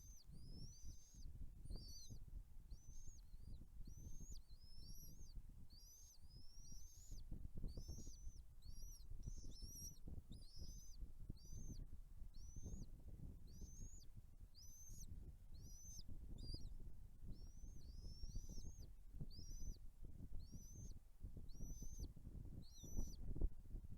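Bald eagle chicks peeping in the nest: short, high chirps repeated about one or two times a second, over a low rumble.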